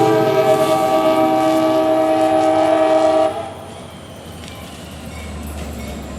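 Nathan K5LA five-chime air horn on a CSX GP40-2 locomotive blowing a loud, steady chord that cuts off about three seconds in. After it stops, the quieter low rumble of the locomotive and slug on the rails is left.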